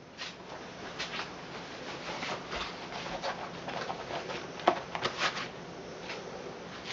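Rustling and light clattering of things being handled, with scattered small clicks and a couple of sharper knocks about four and a half and five seconds in.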